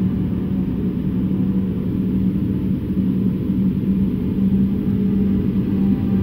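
Light propeller aircraft in cruise flight: a steady, loud engine and propeller drone with a constant low hum.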